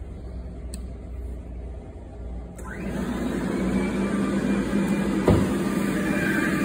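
Battery auto scrubber's motors switched on with its rocker switches about two and a half seconds in, spinning up quickly and then running steadily with a low hum. A single sharp knock about five seconds in.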